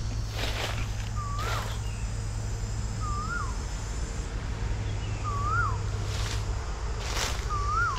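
A bird repeats a short whistled call that rises and then dips, four times, about every two seconds. Footsteps crunch on dry leaf litter now and then.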